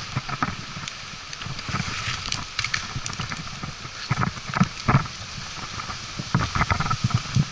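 Irregular knocks, scrapes and rustles of a climber's rope and gear being handled on the freshly cut top of an oak trunk.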